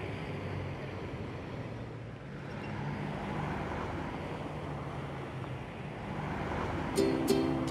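Street traffic: a steady rumble of vehicle engines and tyres on a road. Near the end, plucked ukulele notes begin.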